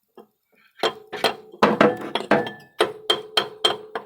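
Rapid hammer blows on metal, about a dozen ringing strikes in three seconds, starting about a second in. The strikes are on the crankshaft pulley of a V6 diesel, whose seized, hardened bolts are being knocked loose.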